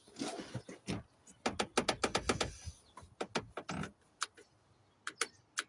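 Quick, irregular sharp clicks and light knocks, thickest about a second and a half in, with a few single clicks near the end: hand work on a car's steering-column wiper switch and its plastic shroud.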